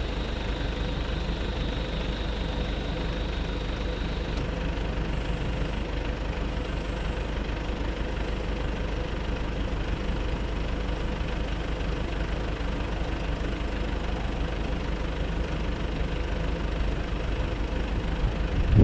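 Truck engine of a Nissan Cabstar idling steadily, running the hydraulics of its Multitel MT222AZ truck-mounted boom lift while the boom is moved. A faint high tone in the mix stops about four seconds in.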